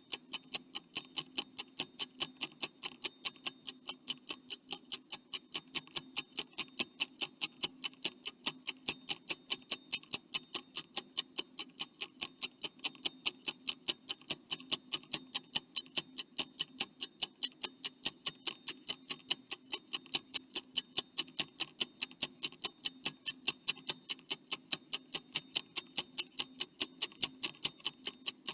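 Clock-style ticking sound effect of a countdown timer: fast, evenly spaced ticks, several a second, with a faint steady low hum underneath.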